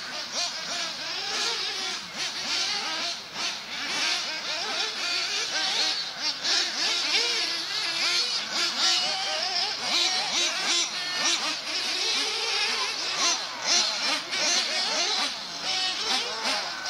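Several 1/8-scale nitro RC buggies racing at once, their small glow-fuel engines whining and revving up and down without pause as they brake and accelerate through the corners.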